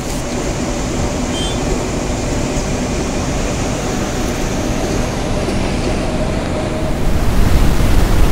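Steady engine and road noise heard from inside a moving city bus. About seven seconds in it gives way to a louder, low rush of wind on the microphone.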